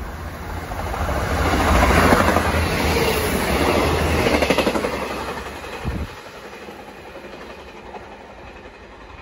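Diesel multiple unit passing through at speed: engine and wheel noise swell quickly, with a rapid clatter of the wheels on the rails, then fade away as it passes, leaving a short thump about six seconds in.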